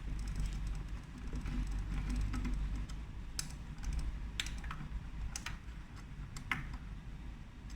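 Scattered light clicks and taps, about one a second, from hands working on the parts inside an opened hand dryer, over a low hum.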